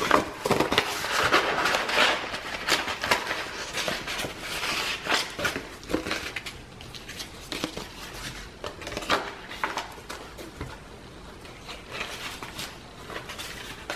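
Paper and card handling: note cards slid into a paper envelope and thick pages of a handmade paper journal turned, a run of small rustles, scuffs and taps, busiest in the first half.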